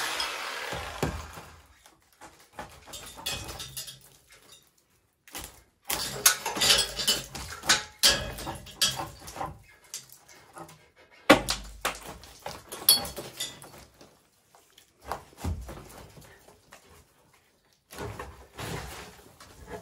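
A power saw dies away at the start. Then come irregular knocks, cracks and scrapes as an old wooden roof beam is worked loose from crumbling masonry by hand, with one sharp loud knock a little past halfway.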